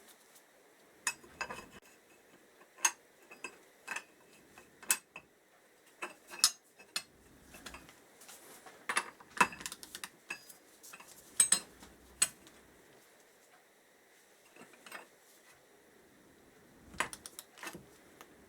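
Metal tools and engine parts clinking and tapping in short, irregular knocks as a clutch holding tool is fitted to the clutch basket of a Kawasaki KZ650 engine, the clinks bunched together about halfway through with a lull after them.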